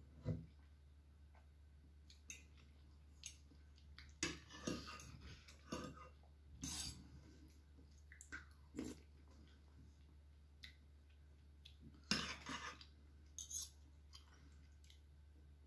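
Close-up eating sounds: chewing mouthfuls of rad na noodles in gravy, with a metal spoon and fork clinking and scraping against the bowl in scattered short sounds, the busiest about four to seven seconds in and again near the end.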